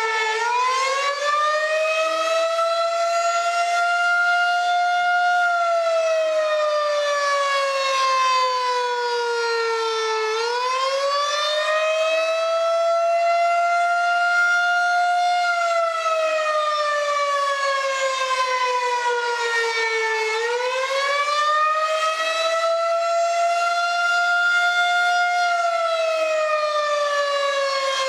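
Outdoor tornado warning siren with a rotating horn, sounding the drill's wailing alert tone. The pitch rises over a couple of seconds, holds, then slides slowly down, repeating about every ten seconds.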